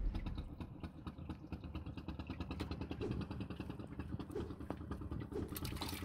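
Small boat engine idling with a rapid, even putter.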